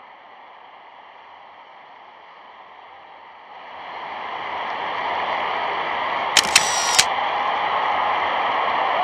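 Stadium crowd roar, a steady rushing noise that swells about three and a half seconds in and then holds. Three sharp clicks come in quick succession just after the middle.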